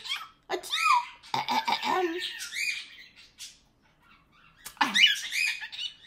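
Cockatiel chattering in short, squeaky, gliding whistles, in two bursts separated by a brief quiet pause.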